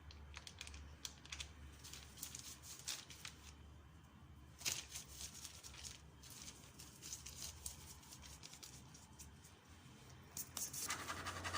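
Hands pressing, rolling and sealing soft bread dough for a baguette on a floured surface: faint irregular rustling and soft taps, with one sharper tap about five seconds in.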